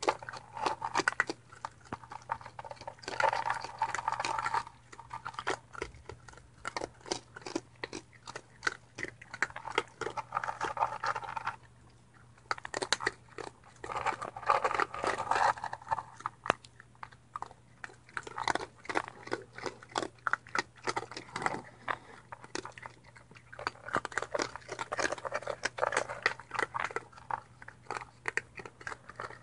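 Raccoons chewing dry kibble close up, a dense, irregular run of crunches that comes in clusters with short lulls.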